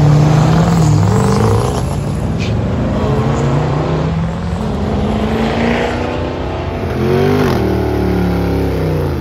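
A car's engine at full throttle on a drag strip launch, its pitch climbing and stepping up through the gears. About seven seconds in, a Dodge Challenger's engine revs during a burnout, pitch swinging up and down.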